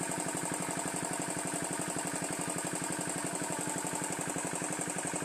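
Engine-driven water pump running steadily with a fast, even knocking beat as it pumps the pond dry.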